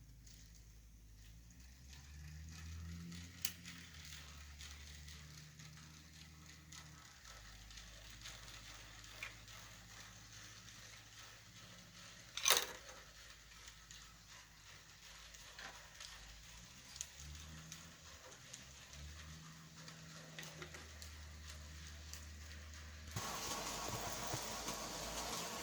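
Bachmann Spectrum N scale model locomotives running on track: a faint low motor hum that shifts in steps, with scattered small clicks and one sharp click about halfway through. A louder steady hiss starts suddenly near the end.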